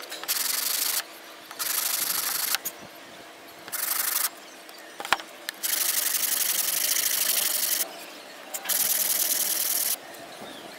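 A wooden board being rubbed by hand across a sheet of sandpaper laid flat, hand sanding: a dry scratchy hiss in five strokes of about half a second to two seconds each, with short pauses between. A light tap sounds in one of the pauses about five seconds in.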